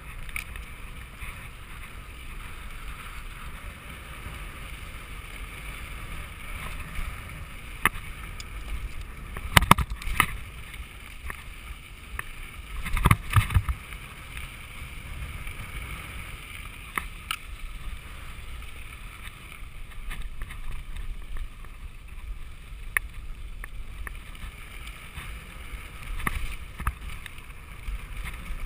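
Mountain bike rolling fast down a rough dirt trail, with steady wind rumble on the camera microphone and sharp knocks and rattles from the bike over bumps, loudest in two clusters about a third of the way in and just before halfway.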